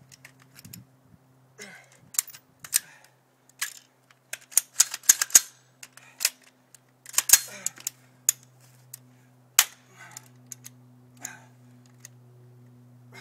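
AR-15 rifle being worked by hand while clearing a malfunction: sharp metallic clicks and clacks of the charging handle, bolt and magazine at irregular intervals, several in a quick run near the middle.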